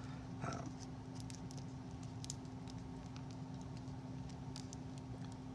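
Faint, scattered small clicks and taps of a doll's necklace being fastened and the doll handled, over a steady low hum.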